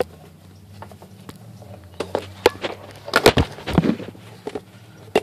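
Scattered light clicks and knocks of handling, bunched about three seconds in, over a steady low hum.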